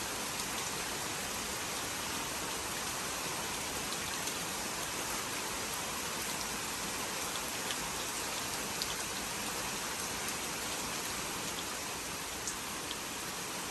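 Steady rain falling, an even hiss with scattered individual drops ticking now and then.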